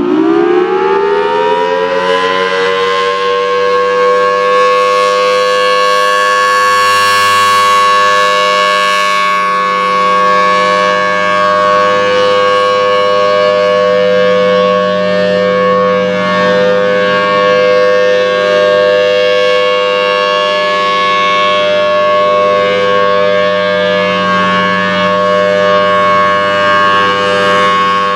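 Federal Signal Thunderbolt 1000T outdoor warning siren sounding the alert signal. It finishes winding up, its pitch rising over the first couple of seconds, then holds a loud, steady tone.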